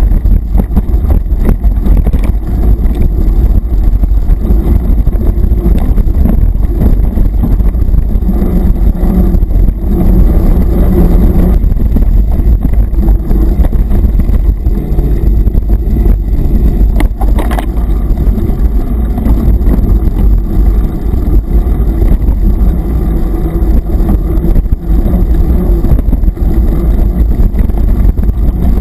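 Mountain bike ridden fast over a bumpy dirt forest track, heard through the rider's camera: a loud, constant low rumble of wind and road buffeting on the microphone, with the bike jolting and rattling over the ground and one sharp knock a little past the middle.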